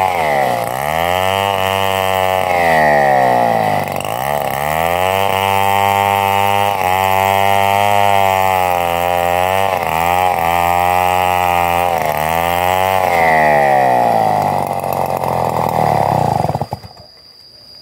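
Chainsaw ripping lengthwise through a dry, very tough rambutan log, running at high revs with its pitch dipping and recovering several times through the cut, then cutting off abruptly near the end.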